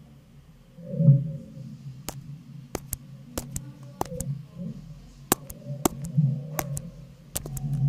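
Heavily slowed-down audio of a computer keyboard being washed: deep, murky swells of low rumbling, with a dozen or so sharp clicks scattered irregularly through it.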